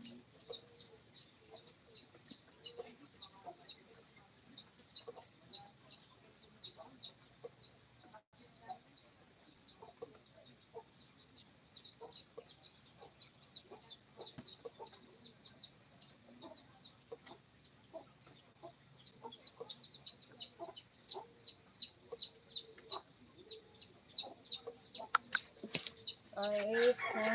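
Chickens clucking, with a steady run of short high chirps, about four a second, and a louder rooster crow starting near the end.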